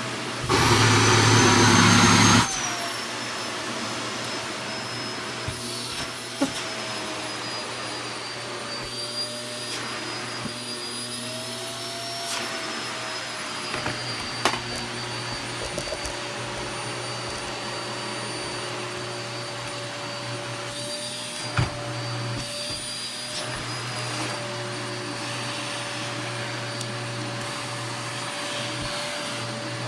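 Vacuum cleaner running with a steady motor hum and a whine that wavers slightly in pitch. About half a second in it gets much louder and harsher for about two seconds, then drops back. A few short clicks or knocks come later.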